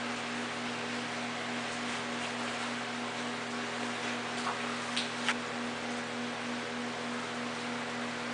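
Steady electrical hum over a constant hiss, with a few faint short chirps around the middle.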